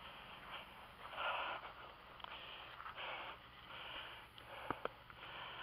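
A man breathing in and out about once a second, with two sharp knocks near the end.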